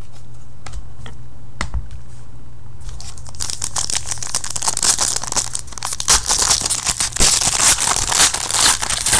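Trading card pack wrapper being torn open and crinkled by hand. A few light clicks in the first three seconds, then dense, crackling crinkling from about three seconds in.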